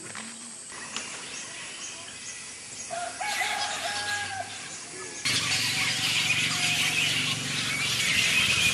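A colony of flying foxes (large fruit bats) screeching and chattering in many overlapping calls, growing louder about five seconds in.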